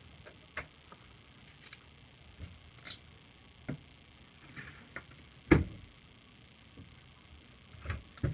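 Scattered clicks and knocks of a chainsaw's metal bar, chain and parts being handled on a bench, about one a second, the loudest a knock about five and a half seconds in.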